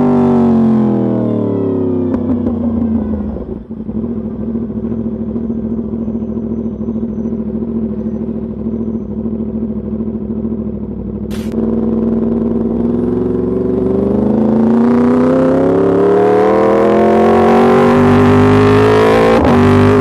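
Yamaha YZF-R1 60th Anniversary Edition's crossplane inline-four through an Arrow Pro race exhaust, heard from the rider's seat: the engine note falls as the bike slows, runs low and steady for several seconds, then climbs steadily as it pulls away again. A brief sharp click sounds a little past halfway.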